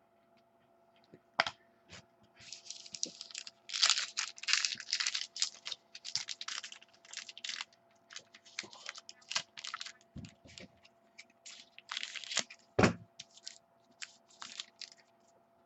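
Trading card packs being torn open and handled: irregular bursts of wrapper crinkling and tearing, with cards clicking and sliding. A soft thump near the end is the loudest sound.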